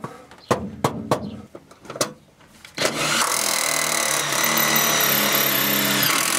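Rubber mallet knocking a stainless steel vent outlet into a hole in a bus floor, a handful of sharp knocks over the first two seconds. Then a cordless drill runs steadily for about four seconds at the vent's flange, fastening the vent in place.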